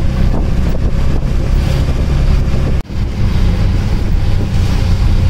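Auto-rickshaw engine running steadily while the rickshaw drives along, heard from inside the open cabin with wind buffeting the microphone. The sound drops out for an instant about three seconds in, then carries on.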